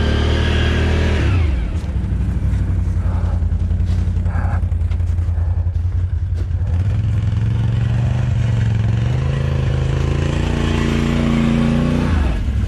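ATV engine running under throttle: the revs drop sharply about a second and a half in, then climb gradually and fall off again near the end as the quad is manoeuvred.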